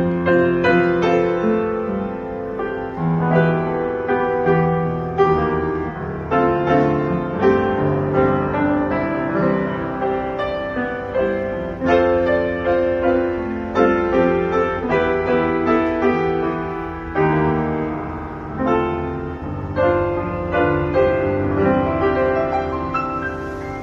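Yamaha WX5F upright piano being played: a continuous piece of many struck notes over sustained chords.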